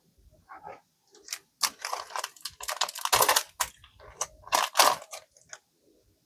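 Trading cards and their foil pack wrapper being handled: a run of crinkly rustles and quick clicks, densest in the middle, then stopping about a second before the end.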